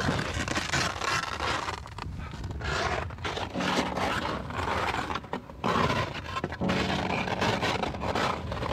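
Skis side-slipping down a steep, icy couloir, their edges scraping over hard snow in uneven surges.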